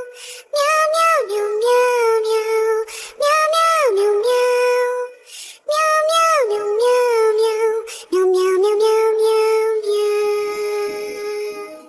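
Background song with a high-pitched sung voice repeating a short phrase that starts high and drops, about every two and a half seconds, ending on a longer held note.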